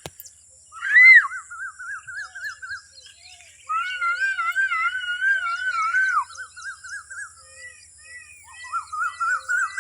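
High, wavering whining calls from an animal, in several stretches, the longest lasting about two and a half seconds.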